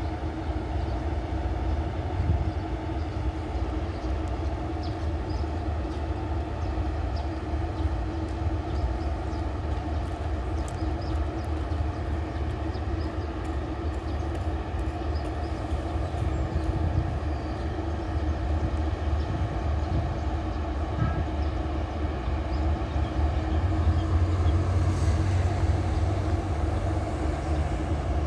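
Diesel express railcar set idling while standing still: a steady low engine hum that grows a little louder about three-quarters of the way through.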